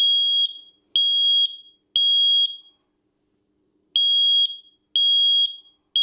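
Nest Protect smoke alarm's siren sounding in full alarm, set off by smoke-test aerosol spray: loud, high beeps about half a second long, in the standard three-beep pattern. Three beeps come a second apart, then a pause, then the next three begin.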